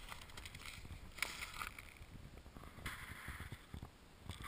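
Footsteps crunching in snow, two slow steps about a second and three seconds in, over a low wind rumble on the microphone.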